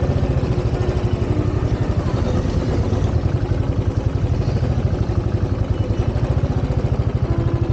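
Motorcycle engine running at a steady pace while riding, with a fast, even pulsing.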